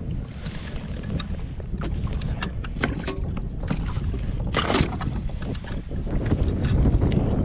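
Gusty wind buffeting the microphone as a low rumble that grows stronger toward the end, with scattered small clicks and knocks and a louder one about halfway through.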